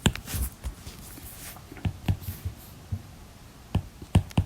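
Scattered light clicks and taps mixed with short scratchy strokes: a pen or stylus writing out a calculation by hand.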